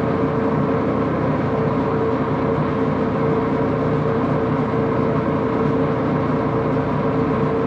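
Axelson lathe running steadily, a constant machine hum with a steady tone.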